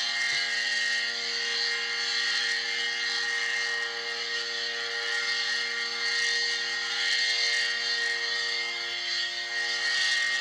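ACA Cyclone electromechanical tornado siren sounding a low, steady tone at full speed, its level swelling and fading slightly, with a hiss above the tone.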